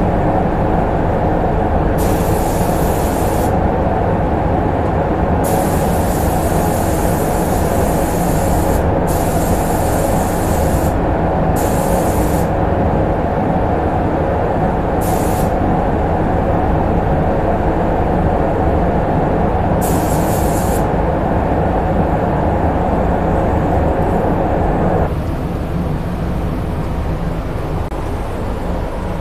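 Spray booth's ventilation fans running with a loud, steady rush. Over it, a compressed-air paint spray gun hisses in about six separate trigger pulls, from a brief puff to about three seconds long, during the first twenty seconds. About 25 seconds in, the steady rush drops somewhat.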